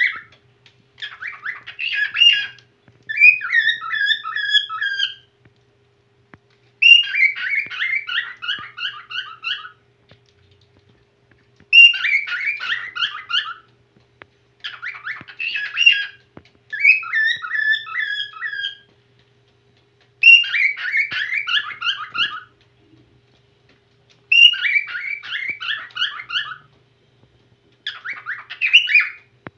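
Whiteface cockatiel singing: warbled phrases of quick whistled notes that step up and down in pitch, each phrase two to three seconds long, with short pauses between them, about eight phrases in all.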